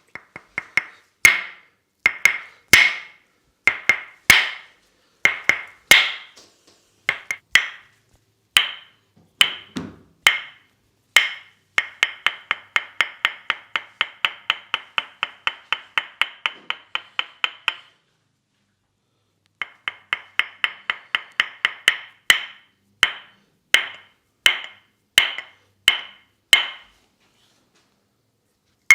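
Tok-Sen massage: a wooden mallet tapping a wooden wedge held against the body, giving sharp, ringing wooden clacks. Irregular taps, often in pairs, then a fast even run of about six taps a second for some six seconds, a pause of about a second and a half, and irregular tapping again.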